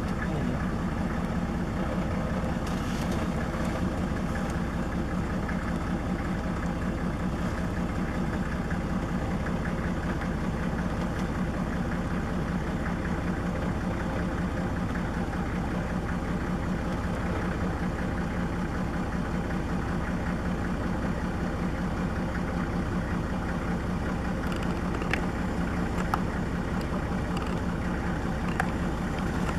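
Vehicle engine idling steadily, with a fast even pulse, and a few light clicks near the end.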